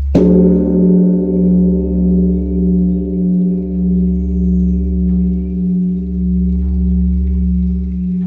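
Large Korean Buddhist bronze temple bell (beomjong) struck once with a swinging wooden log, one stroke of the evening bell-ringing. A short clang about a quarter second in gives way to a deep, long ringing hum that throbs slowly in loudness over the still-fading previous stroke.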